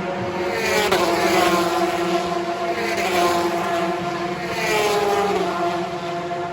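Endurance race cars passing at speed, three in turn about a second apart to two seconds apart. Each engine's pitch falls as it goes by, over a steady drone of more cars further off.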